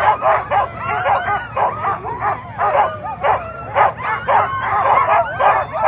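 A harnessed team of sled-dog huskies barking and yelping in a rapid, overlapping chorus, several calls a second without a break: the excited clamour of dogs straining to run before a race start.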